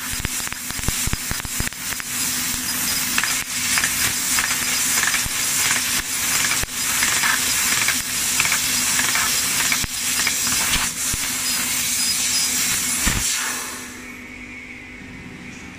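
Leapion 3015ST 1500 W fiber laser cutting sheet metal: a loud steady hiss of the cutting jet with dense crackling of spatter over a low machine hum. The cut stops sharply near the end, leaving only the machine's quieter hum.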